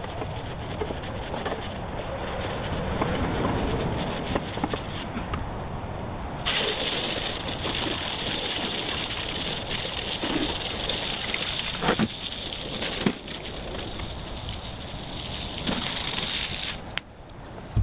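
Water spraying from a hose onto a push mower, a steady hiss that switches on sharply about six and a half seconds in and cuts off near the end, with a couple of knocks in between.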